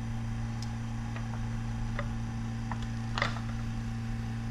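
Steady low hum of the geothermal heat pump running in first-stage heat, with a scattering of light ticks and clicks from handling the brass manifold gauge set and its valve knob. The loudest click comes a little past three seconds in.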